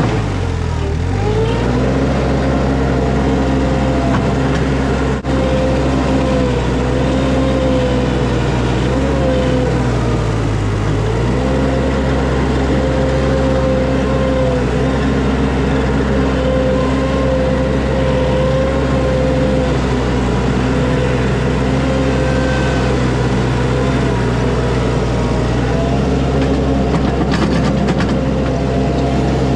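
Mini skid steer's engine running steadily at working speed, its pitch dipping and recovering twice, about a second in and around ten seconds. A single sharp click about five seconds in.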